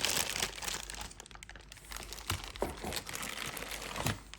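Packaging rustling and crinkling as mixer grinder jars are lifted out of their box, with a few small knocks and clicks; loudest at the start.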